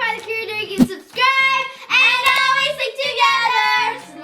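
Music: a song with a sung vocal line of held, gliding notes over a steady stepping bass. A short sharp click a little under a second in.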